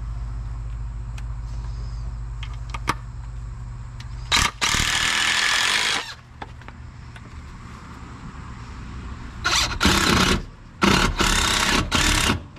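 A power tool run in short bursts during wood framing repair: one burst of nearly two seconds, then three shorter ones near the end. A steady low hum sits under the first few seconds.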